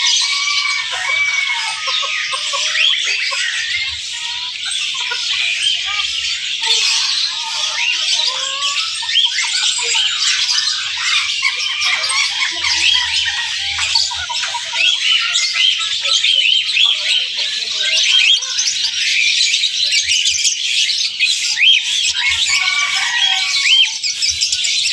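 Many caged songbirds chirping and calling at once, a dense chorus of short, high, overlapping notes and quick squawks that never lets up.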